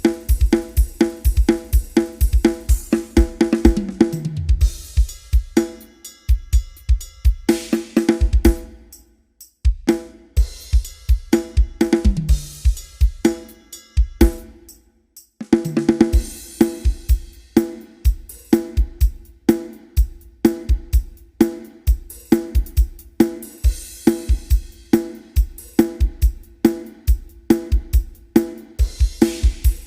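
Drum kit playing a driving groove with rapid bass drum strokes, snare, hi-hat and cymbals, broken by descending tom fills a few times and two short breaks.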